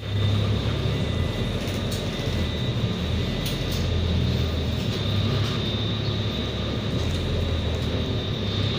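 Inside a city bus: the engine runs with a steady low drone as the bus moves off, with a thin, steady high-pitched whine over it.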